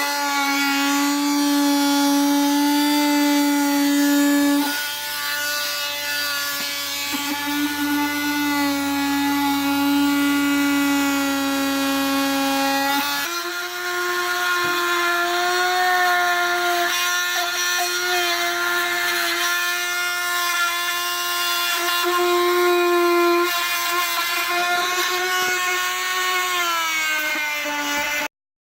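Handheld power tool running: its motor spins up at the start to a steady high whine, the pitch steps up slightly about halfway through, and it cuts off abruptly near the end.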